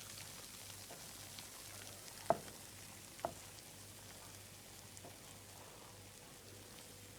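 Faint steady sizzling hiss from a Bialetti Mukka Express stovetop cappuccino maker, still hot just off the heat, with two sharp light clicks about a second apart.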